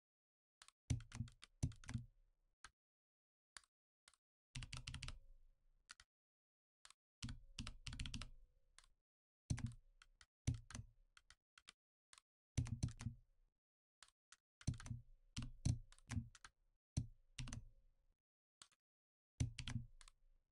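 Computer keyboard keystrokes, with the clicks coming in short bursts of a few strokes and dead silence between bursts, as Blender shortcuts are keyed in during modelling.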